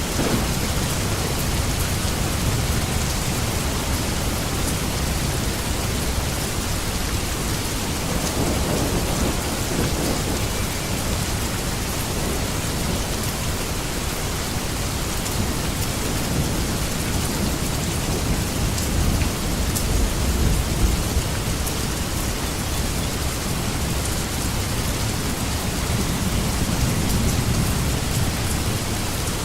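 Steady rain, a dense even hiss, with low rumbles of distant thunder swelling about eight seconds in and again about twenty seconds in.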